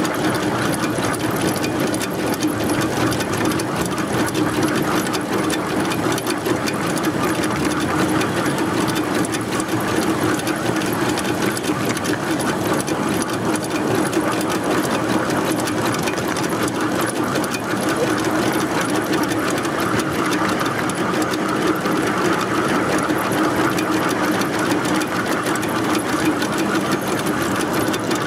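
Live-steam miniature Mogul locomotive running fast, heard close up from a camera mounted on the engine: a steady, rapid clatter of exhaust beats and running gear on the rails.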